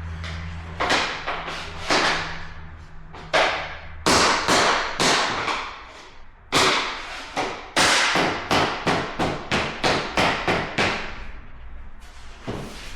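A mallet striking a tapping block to knock vinyl flooring planks together and lock their click joints: about twenty sharp knocks, a few spaced out at first, then a quick run of about three a second.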